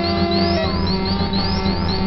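Modular synthesizer soundscape from Buchla and Eurorack systems: a steady low drone under held tones, with short rising chirps repeating about three times a second high above. About half a second in, one tone slides slowly downward.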